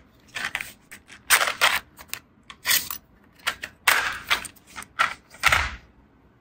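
Hard plastic case of CK LaYZr tungsten electrodes being handled and opened: a string of sharp plastic clicks and rattles from the snap lid and the thin rods inside, stopping shortly before the end.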